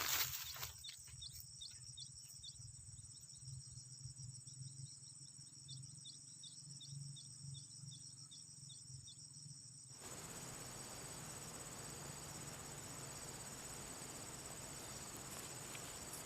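Crickets and other insects trilling in a steady high whine, with a run of short, evenly spaced chirps for most of the first half. About ten seconds in, the background switches abruptly to a louder, even hiss while the insect whine carries on.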